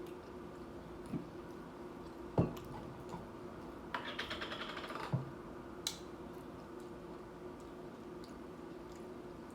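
Close-up eating sounds from tortilla-chip nachos: a soft knock about two seconds in, then about a second of rapid crackling crunches and a last click. A faint steady hum runs underneath.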